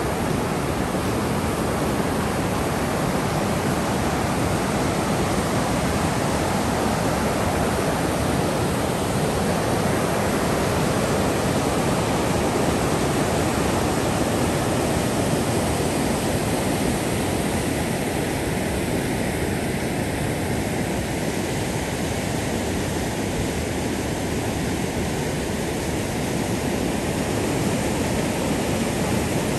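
Steady rushing of river rapids running high, whitewater pouring over granite ledges.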